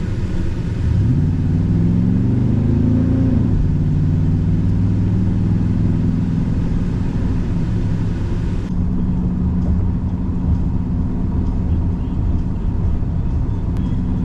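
Chevy Silverado 1500 pickup's engine heard from inside the cab as the truck pulls away. The engine note climbs for a couple of seconds, drops as it shifts up, then settles into a steady cruising drone with road noise.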